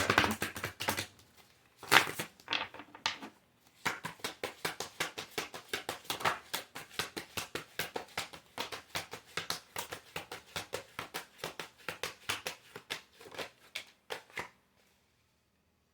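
A deck of cards being shuffled by hand: a few loud slaps at first, then a long run of quick light flicks, about six a second, that stops about a second before the end.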